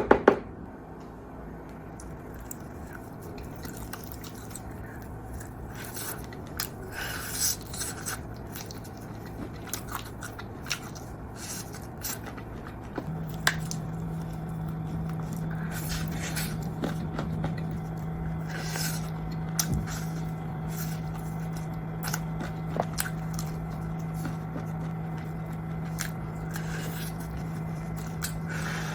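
Close-up eating sounds: irregular crunchy bites and chewing. A steady low hum comes in about halfway through.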